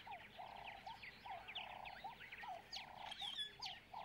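Faint chorus of small calling animals on the savanna: many short, high chirps over a lower, pulsing trill repeated about twice a second.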